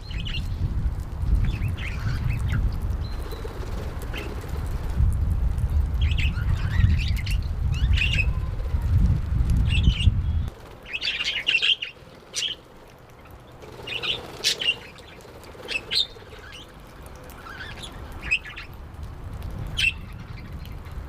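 Budgerigars chirping in short, scattered calls. A low rumble runs under them for the first half and stops suddenly about ten seconds in.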